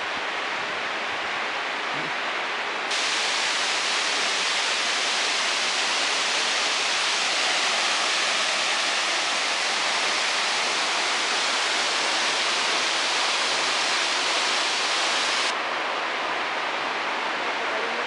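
Waterfall: water rushing steadily over rocks, an even hiss with no pitch to it. It grows louder and brighter about three seconds in and falls back a little near the end.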